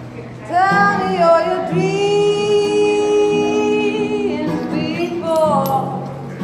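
A woman singing over acoustic guitar. Her voice slides up into a long held note about two seconds in and holds it for a couple of seconds.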